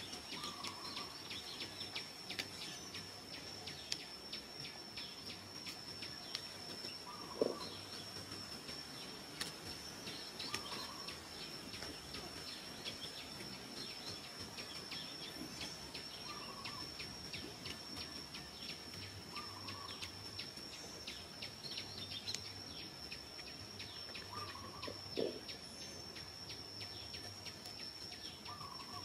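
Forest insect chorus: a steady high-pitched insect trill with fine rapid clicking. A bird gives a short call every few seconds over it. Twice, about a quarter of the way in and again near the end, a louder short sound stands out.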